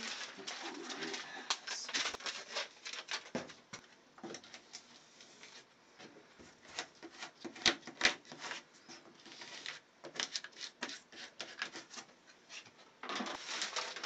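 Tape being handled and pressed onto duct board by hand: irregular crinkling, rustling and scraping with short clicks and taps, a few sharper ones around eight seconds in.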